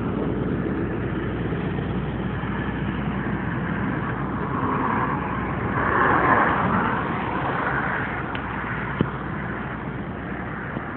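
Highway traffic passing on the bridge: a steady rush of tyres and engines, with one vehicle going by loudest about six seconds in.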